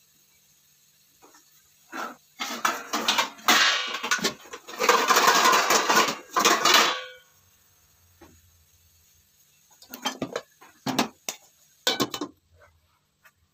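Steel dishes and utensils clattering and clinking as they are handled in a dish basket, a dense clatter for a few seconds. Near the end come a few separate sharp metal clinks as a steel lid is set on a wok.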